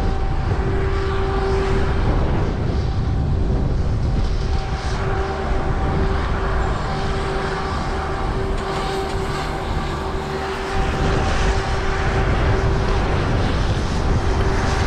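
A steady mechanical drone holding one pitch over a low rumbling noise, slightly quieter for a few seconds in the second half.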